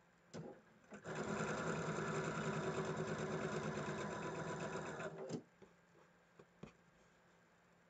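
Electric domestic sewing machine stitching quilt patches: a brief start, then about four seconds of steady, fast stitching that stops abruptly. Two light clicks follow near the end.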